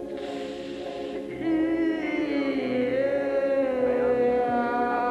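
Live experimental drone music: several layered, chant-like sustained tones that slowly slide in pitch, with a hiss over the first second or so, then growing louder at about a second and a half in.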